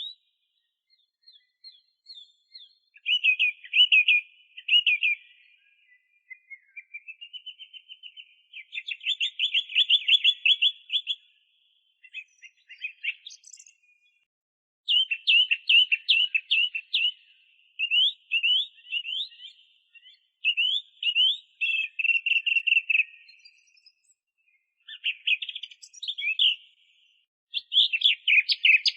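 A thrush singing: phrases of rapid, repeated chirping notes, each lasting one to three seconds, separated by short pauses.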